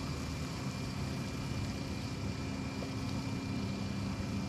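Boat motor running steadily: a low hum with a faint steady high tone above it, its pitch shifting slightly near the end.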